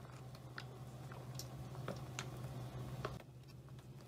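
Faint scattered ticks and light rustling as a hand sprinkles shredded cheese onto a crispy baked burrito, over a steady low hum.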